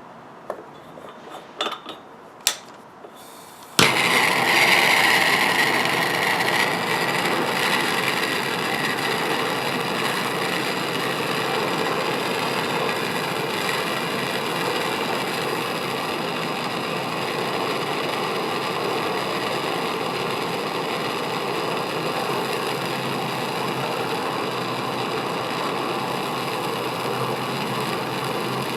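Hand-held gas torch: a few clicks, then the flame lights with a sudden start about four seconds in and burns with a steady, noisy rush, heating a soldered copper fitting to melt the solder.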